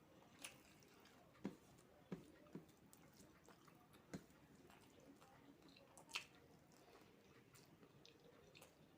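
Quiet chewing and mouth sounds of someone eating fried rice and chicken curry: soft wet smacks with a few sharper clicks at irregular moments, the strongest about a second and a half in and near six seconds.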